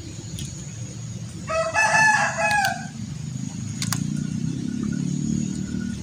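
A rooster crows once, starting about a second and a half in and lasting a little over a second.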